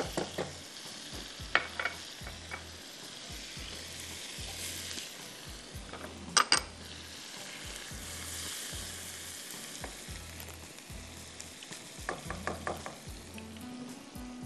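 Chopped garlic and ginger sizzling in butter in a non-stick wok, with a steady hiss, while a slotted spatula stirs and scrapes the pan. Sharp taps of the spatula against the wok come now and then, the loudest a little before halfway and a quick cluster near the end.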